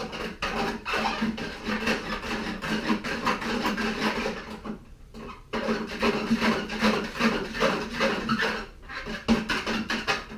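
Rapid scrubbing strokes on the broomed-out steel wire strands of a wire rope end as the oil and grease are cleaned off in degreaser, with a short pause about halfway through.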